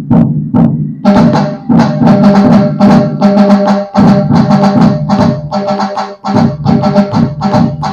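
Roland HandSonic electronic hand-percussion pad playing a combined Puneri dhol and tasha pattern: deep dhol beats under fast, crisp tasha strokes. The rhythm is sparse for about the first second, then fills in densely.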